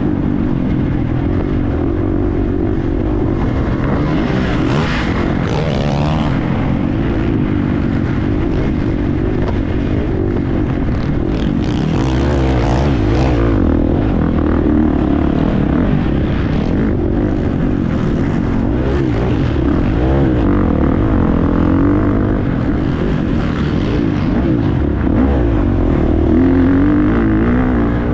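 Husqvarna FC350 motocross bike's single-cylinder four-stroke engine revving up and down continuously under racing load. Short rushes of noise come a few times over a constant low rumble.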